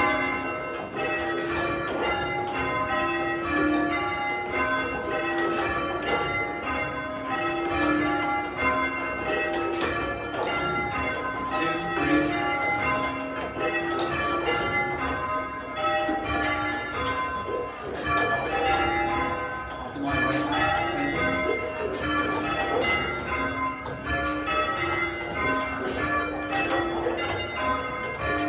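A ring of church bells rung by a team of ringers in change ringing: a continuous, even stream of overlapping strikes, each bell ringing on, from the small treble down to a tenor of about half a ton.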